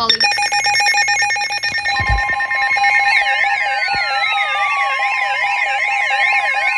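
Layered electronic alert tones for an emergency alert: a fast pulsing alarm tone, joined about three seconds in by a siren-like wail wavering rapidly up and down, while other tones slide slowly downward.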